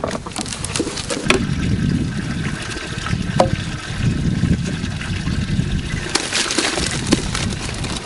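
Water running from a hose into a biogas digester's feed pit while a wheelbarrow load of dung is wheeled up and tipped in, with a louder rush of noise about six seconds in as the load goes over, and scattered clicks and knocks from the barrow.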